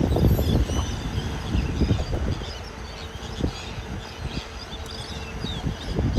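Wind buffeting the microphone in gusts, strongest in the first two seconds, with many birds chirping.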